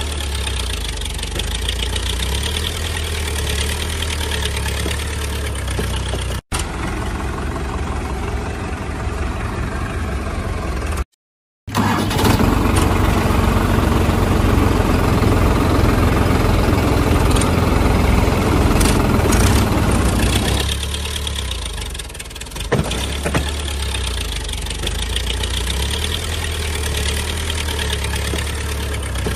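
A motor vehicle engine idling steadily, louder and rougher for several seconds in the middle. The sound breaks off twice for a moment.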